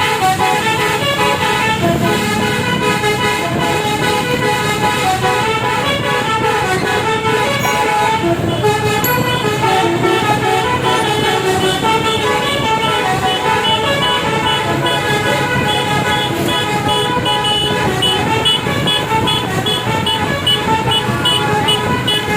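Indonesian bus telolet musical air horn (basuri) played through a 'Takur' horn module, sounding a fast tune of short, loud horn notes that keeps going without a break.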